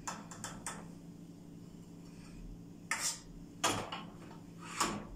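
Metal ladle clinking against a stainless steel pot and a glass jar as thick strawberry jam is spooned into the jar: a few light taps right at the start, then three sharper knocks in the second half.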